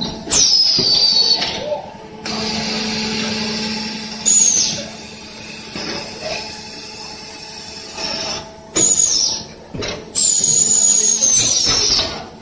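Terrazzo tile press machine running: a steady low hum from its motor, broken every few seconds by a loud high-pitched squeal that slides down in pitch, four or five times in all.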